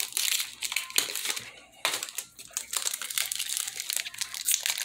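Foil booster pack wrapper crinkling as it is handled, in a run of dense crackles with brief pauses.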